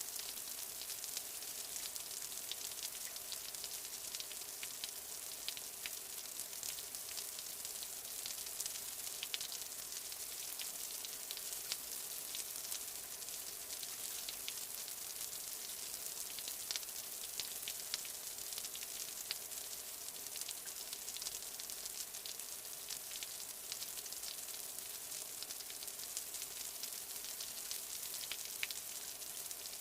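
Light rain falling: a steady hiss with many small, scattered drop ticks.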